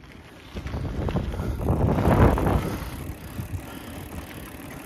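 Wind buffeting the camera microphone while riding a bicycle, a rumbling rush that swells to its loudest about two seconds in and then eases.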